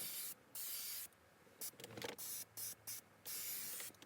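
Hand-held propellant-can spray gun spraying leather colourant in a series of short hissing bursts, some well under a second and a longer one near the end.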